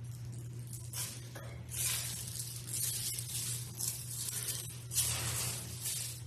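Rustling and handling of a costume mask being swapped for another, several rustles with the longest about two seconds in and again about five seconds in, over a low steady hum.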